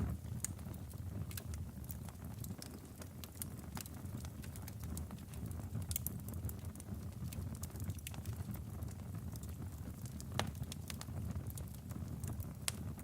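Wood fire burning in a fireplace: logs crackling with irregular sharp pops over a steady low rumble of the flames, one louder pop about ten seconds in.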